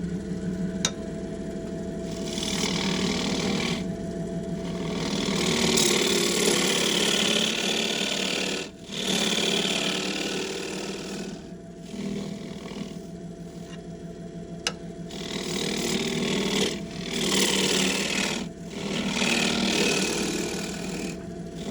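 Wood lathe running steadily while a scraper cuts the inside of a green, wet wood bowl, the scraping coming in several passes with brief breaks between them.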